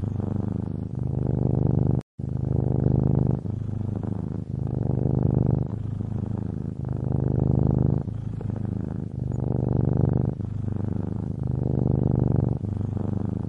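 Domestic cat purring, a steady low rumble that swells and eases with each breath in and out, about once a second, with a brief dropout about two seconds in.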